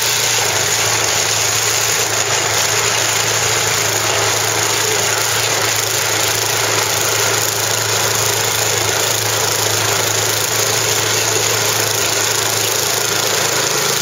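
Walk-behind two-stage gas snow blower running steadily under load, its engine humming while the auger and impeller chew through deep snow and throw it out the chute as an even rushing sound.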